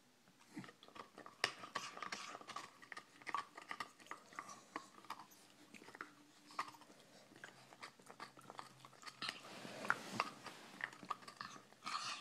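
Staffordshire bull terrier gnawing on a deer antler: irregular clicks and scrapes of teeth on hard antler, starting about half a second in.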